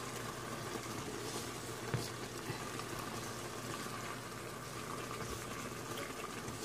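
Sauce simmering steadily in a wok around pieces of fried milkfish, with one light knock about two seconds in.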